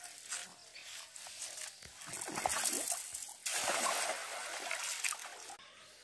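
Cast net thrown out and landing on a pond: splashing and spattering of water starting about two seconds in, then a longer spell of splashing that stops about half a second before the end.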